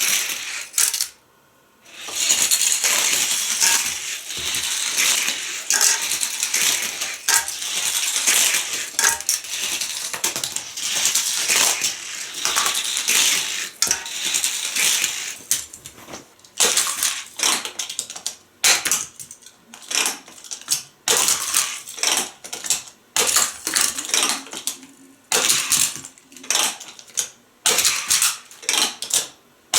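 Hard plastic Hot Wheels track pieces clattering and clicking as they are handled, with a long rattling stretch in the first half and separate bursts of clicks after that.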